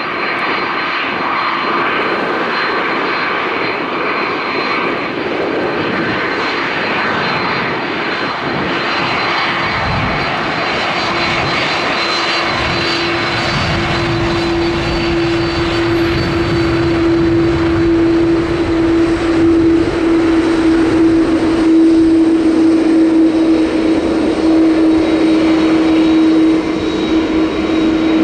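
Jet airliner engines running close by: a dense steady rush with high whining tones, joined about halfway through by a strong low hum that grows louder toward the end.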